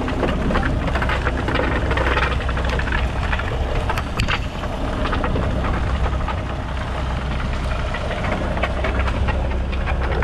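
Fishing boat's inboard engine running steadily with a low hum, with irregular clicks and knocks over it throughout.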